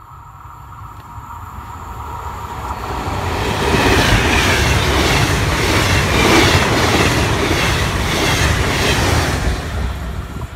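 Passenger train of single-deck coaches approaching and passing at speed. A rushing sound of wheels on rail builds up, then carries a regular clatter of the bogies, about two strokes a second, and falls away quickly near the end as the last coach goes by.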